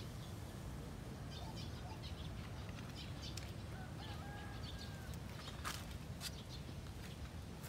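Outdoor ambience: scattered short bird chirps and a brief whistled call about four seconds in, over a steady low rumble.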